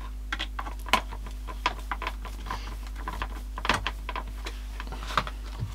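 Irregular small plastic clicks and taps as a replacement battery pack is pressed and worked into the handle of a Dyson V7 cordless vacuum, over a faint steady hum.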